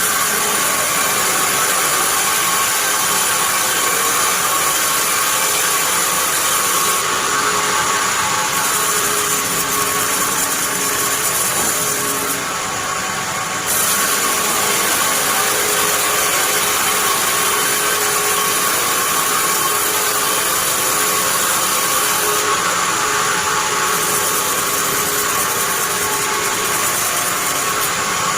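Bandsaw sawmill running, a steady machine noise with a constant whine and a hiss; the high hiss drops away briefly three times.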